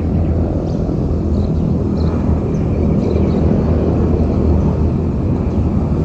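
A steady low rumble throughout, with a few faint high chirps of small birds over it.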